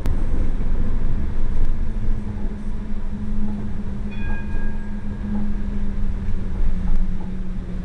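Alicante FGV tram running along its line: a steady low rumble with a constant motor hum, and a brief high-pitched tone about four seconds in.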